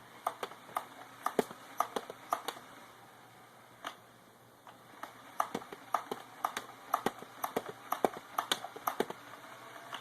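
Sharp plastic clicks and rattles from a Buzz Bee Ultra-tek Cyclonic foam-dart blaster being handled to clear a dart jam. They come in two irregular clusters, one at the start and a longer one from about five seconds in.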